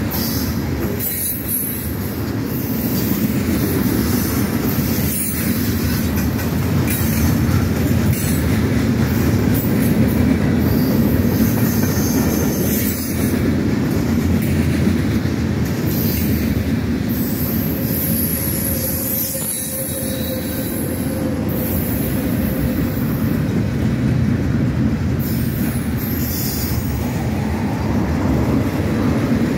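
Mixed freight train of tank cars, covered hoppers and gondolas rolling past at speed: a loud, steady rumble of steel wheels on rail, with a brief high hiss now and then.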